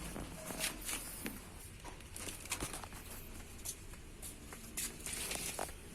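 Scattered light clicks, taps and rustles of something being handled, with no engine running.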